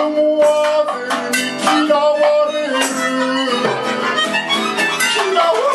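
Live acoustic band: a strummed acoustic guitar, a melodica playing held reedy notes, and frequent strikes on small drums, tambourine and cymbal.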